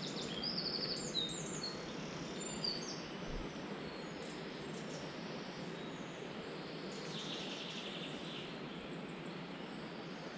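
Steady rush of a shallow river running over stones, with songbirds chirping above it, mostly in the first few seconds and again near the end.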